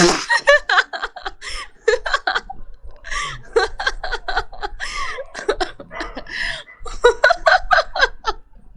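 A person laughing in rapid short bursts, with a couple of brief pauses for breath.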